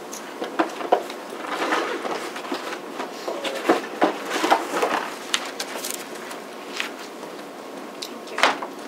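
Handling noise in a meeting room: scattered clicks, knocks and rustling of paper, with footsteps, over a steady room hum; the sharpest knock comes near the end.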